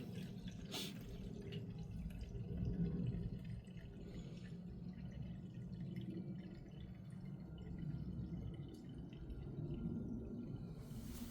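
Faint dripping and small liquid sounds as cleaning solution is applied to an inkjet printhead, with a few light clicks of handling over a low steady hum.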